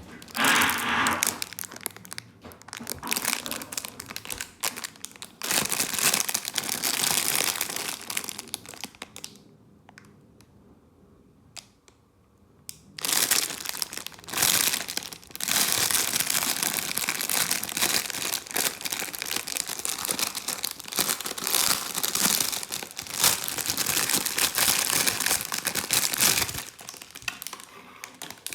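Packaging crinkling and rustling as it is handled and opened by hand. A quieter pause with a few light clicks comes around the middle, then the crinkling resumes.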